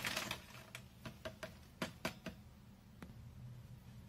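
Plastic sachet of powdered milk being emptied and handled over a stainless steel saucepan: a brief rustle at the start, then a run of faint, irregular light clicks and taps.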